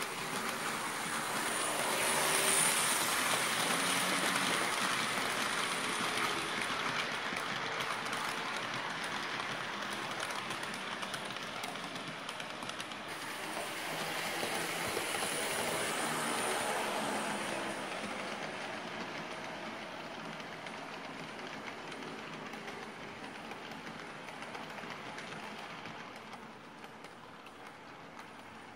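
HO scale model train rolling along the layout track: a steady rumble and click of the small wheels on the rails. It swells twice, about two seconds in and again around the middle, then fades toward the end.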